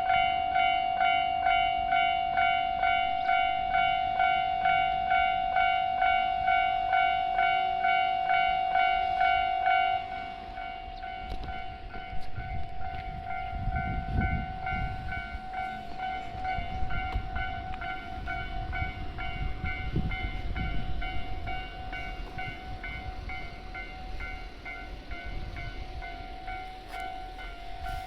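Japanese level-crossing warning bell ringing its electronic clang about twice a second. It drops sharply in level about ten seconds in and keeps ringing. A train then rumbles over the crossing, loudest about fourteen and twenty seconds in.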